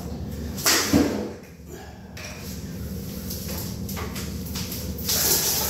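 A plastic water jug is set down on a table with a knock about a second in, followed by quiet handling and shuffling. A loud rustling hiss starts near the end.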